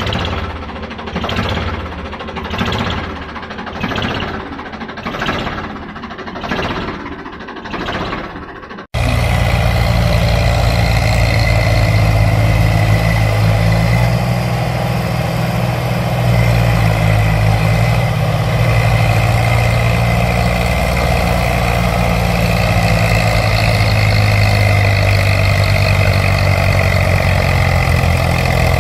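Vehicle engine sound. For about nine seconds it swells and fades about every second and a half, then a sudden cut switches it to a louder, steady engine running.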